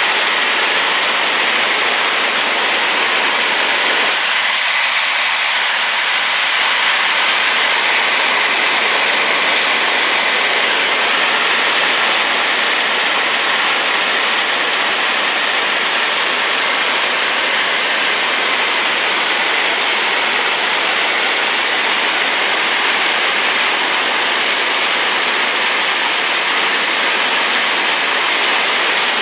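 Waterfall in heavy flow after rain, its water falling in a loud, steady rushing hiss.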